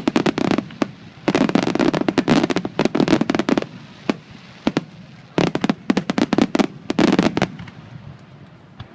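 Aerial fireworks crackling: dense clusters of many sharp pops come in three waves, the longest about two seconds. The pops thin to a few scattered ones over the last second or so.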